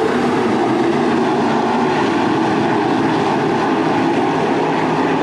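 Field of 305 sprint cars' V8 engines racing around the dirt oval, heard from across the track as a steady drone of many engines at once.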